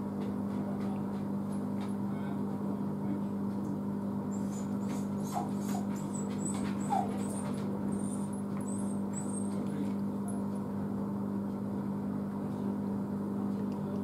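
Beko DFS05010S freestanding dishwasher running a wash cycle: a steady, fairly quiet motor hum. Faint short high squeaks come and go between about four and ten seconds in.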